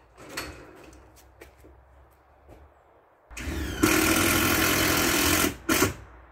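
A few light knocks and clicks, then a power tool's motor runs for about two seconds and gives one more short burst.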